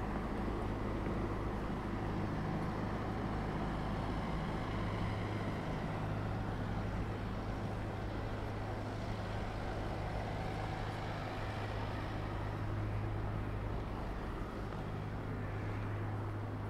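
Steady low drone of a moored riverboat's engine running, a constant hum that holds the same pitch throughout.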